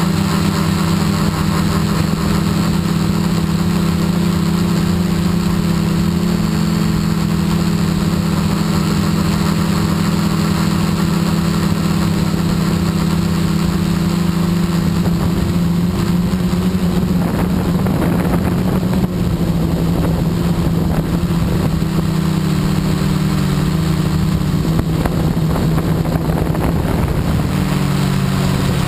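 Quadcopter's electric motors and propellers buzzing steadily in flight, recorded from the camera mounted on the craft; the pitch shifts a little now and then as the motors change speed.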